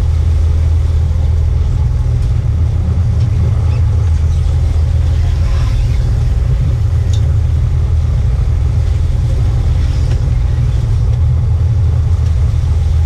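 Fishing boat's engine running steadily on board, a loud, even low drone.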